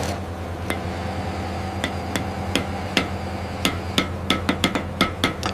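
Light hammer taps on the wooden bridge beams, about fifteen sharp strikes with a short ring, irregular at first and coming quicker, two or three a second, in the second half, over a steady low hum.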